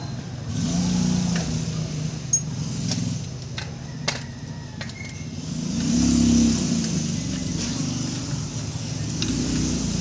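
A motor vehicle's engine running nearby, its pitch rising and falling as it revs, loudest about six seconds in. A few sharp metallic clicks come from a wire rod being worked into a radiator's tubes.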